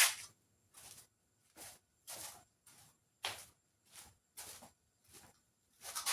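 Footsteps at a walking pace, about nine short scuffs roughly every half second or so.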